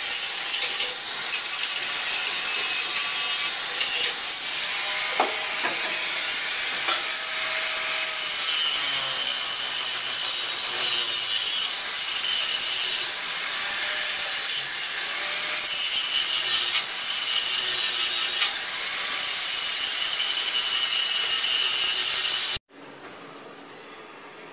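Steady, scratchy rubbing and scraping on wood, with high squeaky tones over it, cutting off abruptly near the end.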